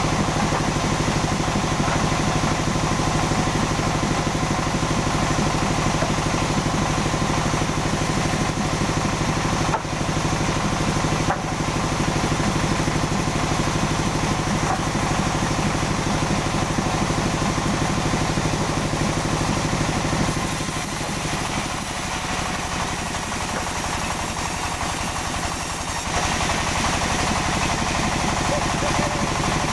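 Sawmill machinery running steadily with an engine drone. For several seconds past the middle the low drone eases and a higher hiss comes up.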